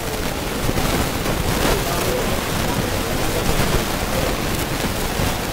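Steady crowd hubbub of many guests talking at once in a hall, a dense noise with no single voice standing out.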